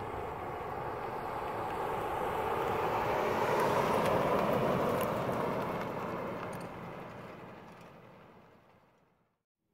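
1970 Ford F-250 pickup driving past: engine and tyre noise grows as it approaches, is loudest about four seconds in as it goes by, then fades as it drives away, dying to silence near the end.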